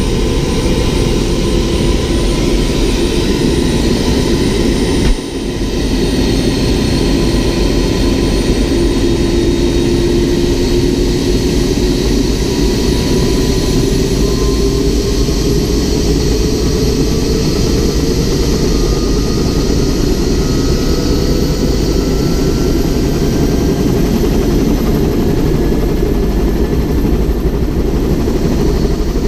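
Helicopter engine and rotor running on the ground, heard from the cabin, the pitch slowly rising as the rotor spools up before lift-off. A single knock about five seconds in.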